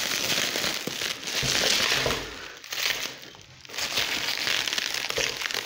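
Black plastic bin-bag wrapping crinkling and rustling as it is pulled and worked off a computer monitor, with a brief lull about two and a half seconds in.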